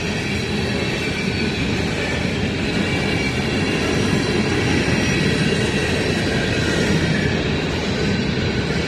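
Freight train of covered hopper cars rolling past close by: a steady rumble and rattle of wheels on the rails.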